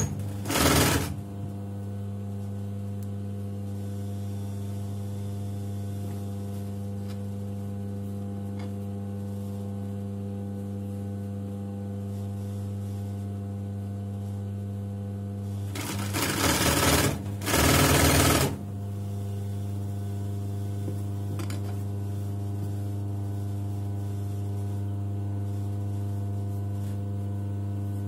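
Domestic electric sewing machine stitching slowly through fabric and elastic: a steady hum with faint ticks. Twice it speeds up into a louder, faster run, briefly near the start and for about two and a half seconds past the middle.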